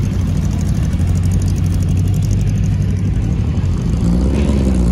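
Engines of 1950s racing sports cars running at low speed as the cars creep past in a line. Near the end one engine's note rises and then falls as a car passes close.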